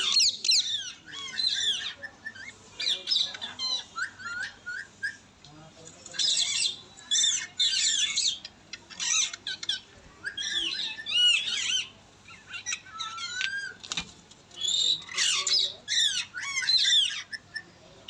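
Indian ringneck parakeet squawking and chattering in repeated bouts of short, high calls that sweep up and down in pitch, with brief pauses between bouts.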